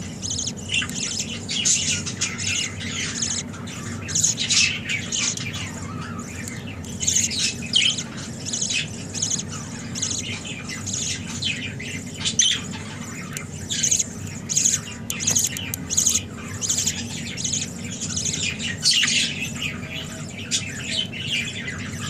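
Budgerigars chirping and squawking in a fast, continuous chatter of short calls, over a steady low hum.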